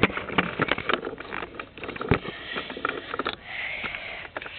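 Handling noise from a plastic AT-AT toy and the camera being moved about: scattered clicks and knocks, a sharp one at the start and another about two seconds in. A breathy rush of air lasting about a second comes a little past halfway.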